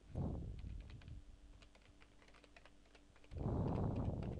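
Typing on a computer keyboard: a quick run of light key clicks as a web address is keyed in. Two louder, low, muffled rushes of noise come through under the clicks, one at the start and one near the end.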